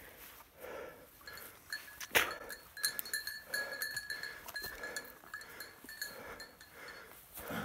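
A setter's bell ringing on and off as the dog works through the undergrowth, over soft rustling steps. One sharp crack comes about two seconds in.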